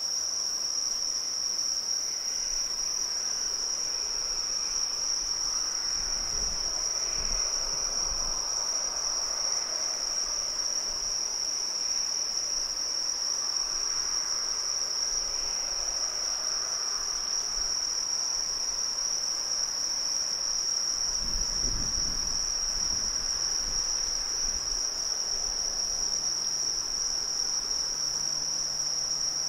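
Insects, crickets by the sound, trilling without a break in one steady high-pitched tone, the loudest sound throughout. Under it runs a faint wash of distant noise, with a couple of dull low thumps about six and twenty-one seconds in.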